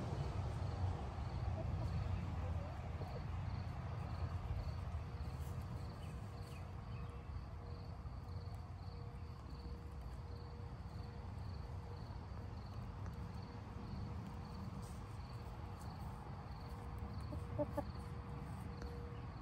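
Backyard chickens clucking now and then as they forage, over a steady, evenly pulsed high insect chirping and a low rumble.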